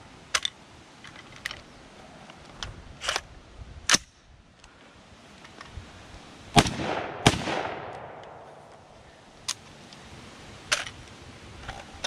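Two shots from a DiamondBack DB15 AR-15 rifle in 6.5 Grendel, under a second apart about halfway through, each followed by an echo that trails off over a second or two. Several smaller sharp clicks come before and after the shots.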